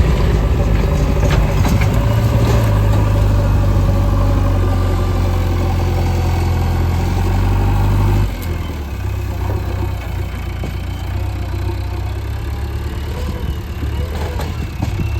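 JCB 3DX backhoe loader's diesel engine running hard under load, then easing off to a lower, quieter run about eight seconds in.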